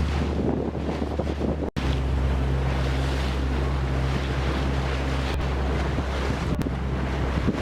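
A boat's engine running with a steady low hum under wind buffeting the microphone and the rush of water. The sound drops out for an instant about two seconds in.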